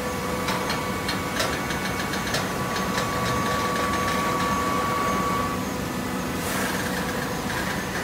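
Horizontal hydraulic baler running, with a steady hum and a whine from its hydraulic system. A run of clicks and knocks comes in the first three seconds. The whine stops about five and a half seconds in, followed by a short hiss.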